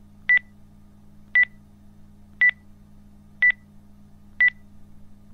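Electronic beep sound effect of an animated intro: a short high double blip repeating about once a second, five times, over a faint steady low hum.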